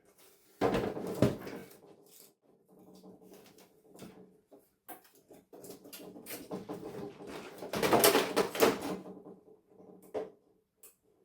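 Knocking and clattering of a television's plastic casing and tools being handled during dismantling, in irregular bursts, the loudest about eight seconds in, with a sharp click near the end.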